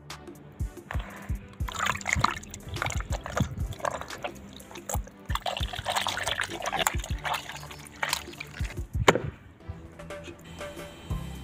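Hands squeezing and kneading flour dough in a bowl of water, with irregular wet squelches and splashes as the starch is washed out to leave the gluten for seitan. Background music plays throughout, and the sharpest splash comes about nine seconds in.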